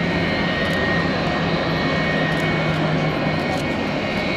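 Jet airliner engines running: a steady rush of noise with a low hum and a thin high whine. The low hum fades about three seconds in.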